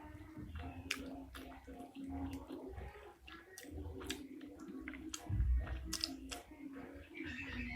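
Close-miked wet chewing and lip-and-tongue clicks from a person eating pentol mercon, Indonesian meatballs in chilli sauce, with a low thump about five seconds in.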